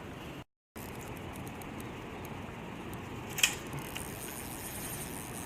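Steady rushing of river water over riffles. The sound drops out completely for a moment about half a second in, and a single sharp click comes about three and a half seconds in.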